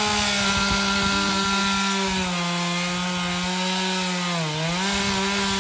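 Gas-powered two-stroke chainsaw cutting a tree, its engine running at a high, steady pitch. The pitch drops slightly about two seconds in and dips briefly near the end as the engine comes under load.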